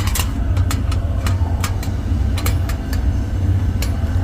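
Small sharp clicks of a rotary padlock's metal parts being handled as its detachable shackle is fitted back on, about a dozen, irregularly spaced, over a steady low rumble.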